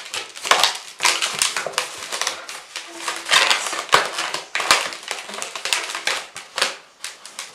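Latex twisting balloons squeaking and rubbing as they are twisted and wrapped around each other by hand. It comes as a dense, irregular run of short crackling squeaks.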